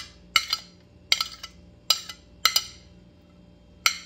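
A metal spoon clinking and scraping against a ceramic plate while chopped fruit and nuts are pushed off it into a bowl: a series of sharp clinks, irregular, about every half second.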